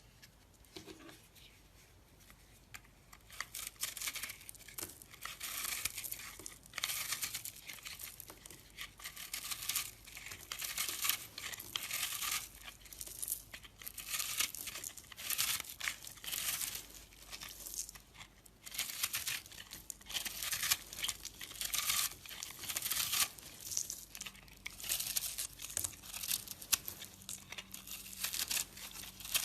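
Soap being crushed or scraped, crumbling and crackling in repeated strokes about once a second, beginning a few seconds in.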